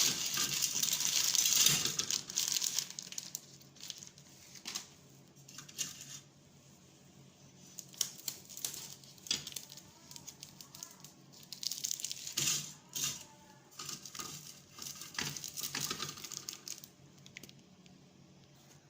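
Plastic instant-noodle packets crinkling and being torn open, loudest in the first two seconds and then in short, irregular bursts of rustling.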